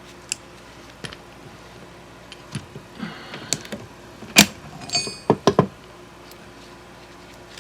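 Vintage Easco 1/2" drive ratchet being taken apart by hand: scattered small metal clicks and clinks, the sharpest about four and a half seconds in, then a quick run of clinks with a brief ringing of a small steel part, typical of prying out and lifting off the head's retaining ring.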